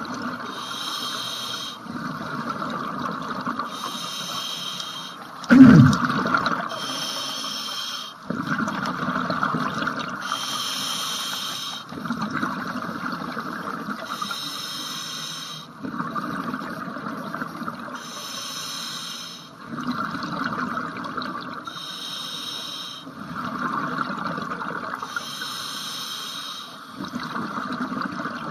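Scuba diver breathing through a regulator underwater: a hissing inhale alternating with a rush of exhaled bubbles, about every three to four seconds. A single loud thump comes about six seconds in.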